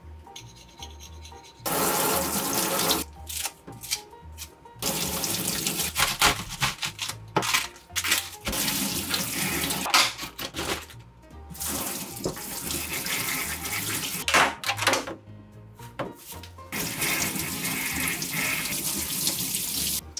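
Kitchen tap water running into a stainless steel sink as vegetables and fruit are rinsed, turned on and off several times so the splashing comes in stretches of a few seconds.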